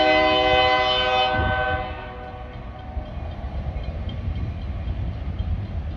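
A diesel locomotive's multi-note air horn sounds a chord that cuts off about a second and a half in. The low rumble of the train carries on after it.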